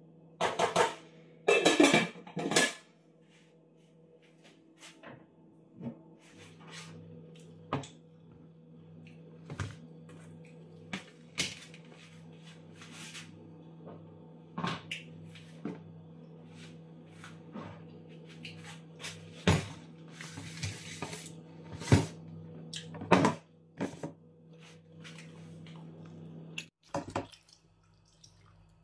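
Metal pot, lid and utensils clattering, loudest in a burst of knocks in the first few seconds, then scattered clinks and knocks of kitchen work over quiet background music with a steady beat.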